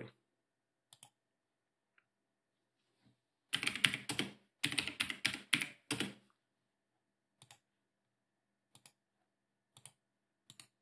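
Typing on a computer keyboard: a quick run of keystrokes from about three and a half to six seconds in, then a few single clicks spaced about a second apart.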